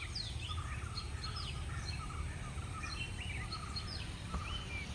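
Birds chirping: many short, quick calls and falling whistles, over a steady low rumble of outdoor background noise.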